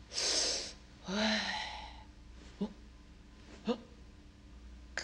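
A woman's sharp breath in, then a breathy voiced sigh that falls in pitch, followed by two short, soft vocal sounds about a second apart: a storyteller's non-verbal stage breaths while miming peering over a wall.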